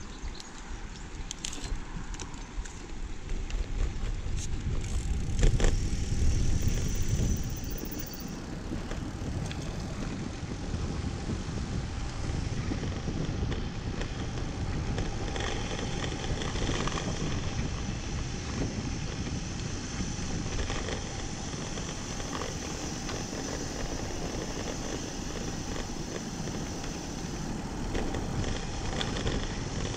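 Wind and road noise from riding a road bike: a steady rush over the microphone, heavier for a few seconds around five seconds in, with a couple of faint clicks.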